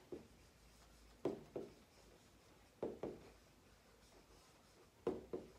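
Stylus tapping on the glass of an interactive touchscreen as a sentence is written on it: soft short taps, mostly in pairs, one pair every second and a half or so.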